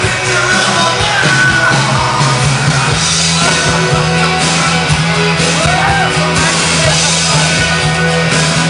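Loud music with singing over a steady bass line.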